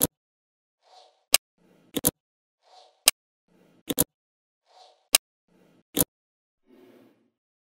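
Small magnetic balls snapping onto a block of magnetic balls: sharp clicks about once a second, some in quick pairs, with fainter soft rustling between them.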